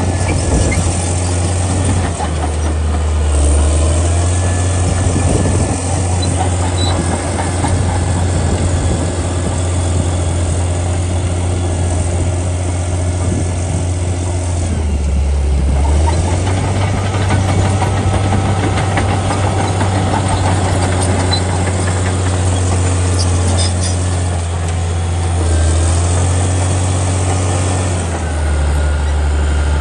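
Caterpillar D6D crawler bulldozer's six-cylinder diesel engine running under the operator's control as the dozer moves over the dirt. Its low engine note shifts down and back up a few times, about 3 s in, around the middle, and near the end.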